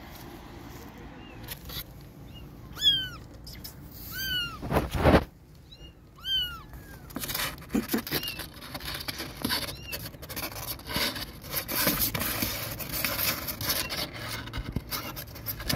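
Young kitten mewing in short, high, arching calls, the loudest three in the first half, with a dull thump about five seconds in. After that, scratching and scrabbling against a cardboard box as the kitten paws at its side.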